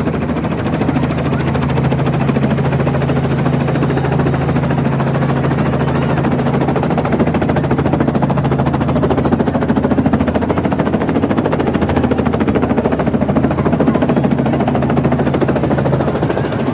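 Helicopter running close by: a rapid, even beat of the rotor blades over a steady engine hum.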